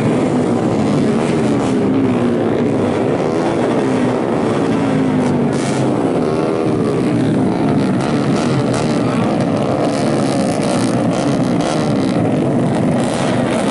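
Several four-stroke underbone racing motorcycles running hard at high revs, their engine notes overlapping and rising and falling in pitch as they pass.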